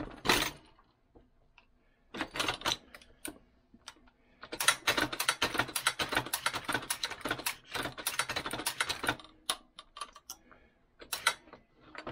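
Metal clicking and rattling from a Hornady 366 shotshell reloading press being worked by hand: a short burst at the start, a cluster about two seconds in, then dense rapid clicking for several seconds from about halfway, trailing off into scattered clicks.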